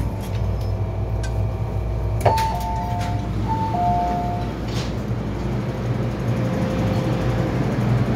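MTR M-Train saloon doors opening: a click, then a falling two-note door chime played twice, over the steady low hum of the stopped train.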